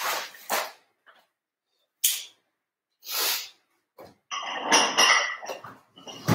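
A few short, sharp breaths or sniffs, then a couple of seconds of rustling and knocking as objects on the floor are handled.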